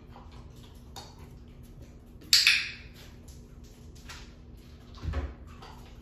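A puppy's claws ticking faintly on a vinyl-plank floor as it trots about. A loud, sharp scraping rattle comes about two seconds in, and a dull thump about five seconds in.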